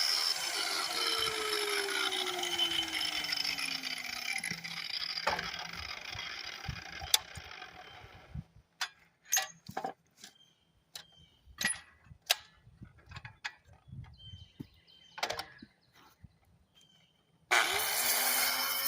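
A grinder runs against the bark of a log, its motor note falling as it winds down. Then come several seconds of scattered clicks and knocks. Near the end the grinder starts up again.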